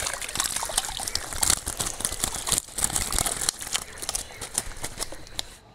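Fishing keepnet, with fish inside, being hauled out of the water through bankside grass and reeds: a dense, irregular rustling and crackling of wet mesh and stems that stops shortly before the end.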